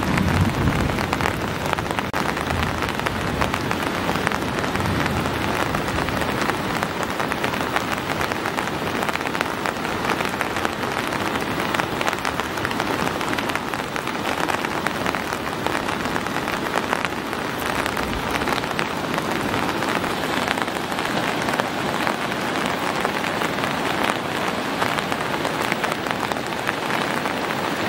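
Heavy rain falling steadily: a dense, even hiss of countless drops pattering close by.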